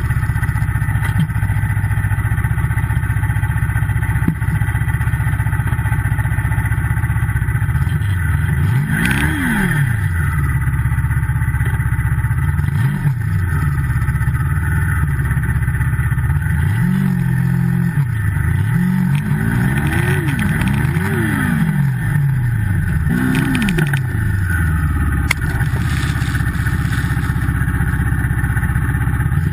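Turbocharged Yamaha Multi Purpose snowmobile engine running steadily and revved in short throttle blips several times, the pitch climbing and falling back within a second or two each time.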